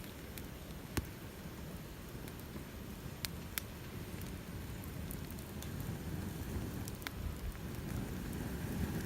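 Wood campfire crackling, with scattered sharp pops over a low steady rush of flame.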